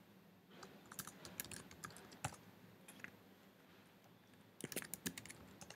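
Faint typing on a computer keyboard: scattered keystrokes, then a short quick run of keys near the end.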